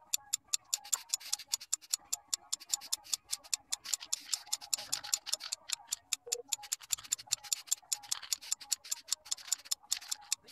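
Aerosol spray-paint can rattling: its mixing ball clicks rapidly and evenly, about seven a second, with a hiss of spray at times.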